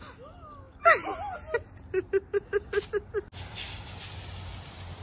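A few voice sounds and a quick run of short laughs. About three seconds in, a sudden cut to the steady hiss of a jet of water from a hose spraying a concrete driveway.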